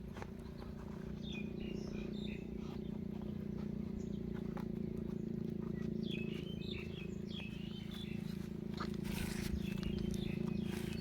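Short high-pitched animal chirps in a few clusters, over a steady low hum, with scattered clicks.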